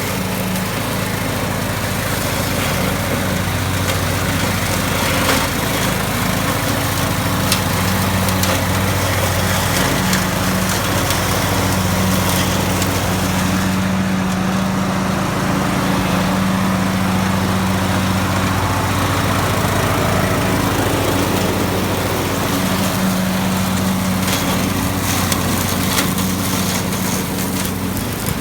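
John Deere D110 riding lawn mower's engine running steadily while mowing, with a few light clicks.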